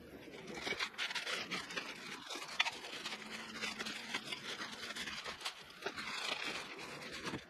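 Clear plastic wrapping crinkling and rustling as it is pulled off the umbrella's metal base parts, with irregular crackles and one sharper crack about two and a half seconds in.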